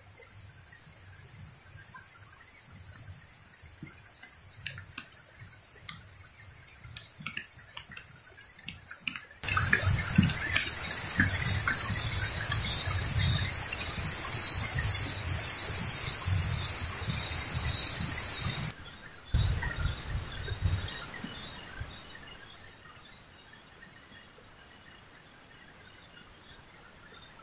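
A steady, high-pitched chorus of insects calling in a hill forest. The chorus is much louder from about a third of the way in and cuts off suddenly about two-thirds through. Faint bird chirps and a low rumble sit beneath it.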